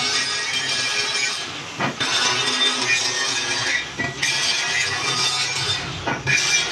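Angle grinder grinding down the weld seams on a square steel tube built from two welded angle irons, the disc scraping on the steel. The sound dips briefly about two, four and six seconds in as the grinder is lifted and moved along the tube.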